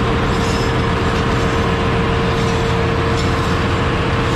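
Ship's engine-room machinery running with a loud, steady drone and a constant hum.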